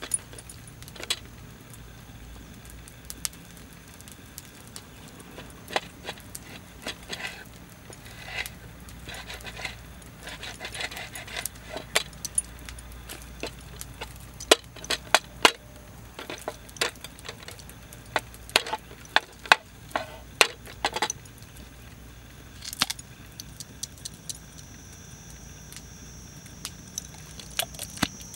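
Small hard objects, such as camp cookware and utensils, clinking and tapping irregularly as they are handled, some strikes ringing briefly. A thin, steady high-pitched tone comes in near the end.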